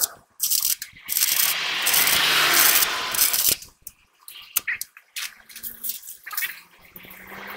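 Electric arc welding on a truck's steel axle housing: the arc crackles and hisses steadily for about three seconds, then stops, leaving only a few faint clicks.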